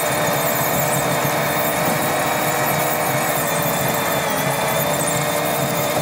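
Massey Ferguson 5713S tractor's four-cylinder diesel engine running steadily under load while pulling a reversible plough through the ground, with a steady high-pitched whine over it.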